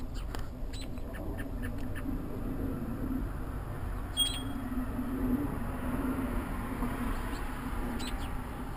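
Low, steady gurgling calls from a pair of sandhill cranes, with one short high chirp about four seconds in.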